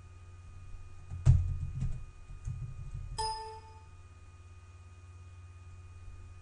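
A dull thump about a second in, then a single short computer alert chime about three seconds in that rings briefly and fades, over a steady low hum.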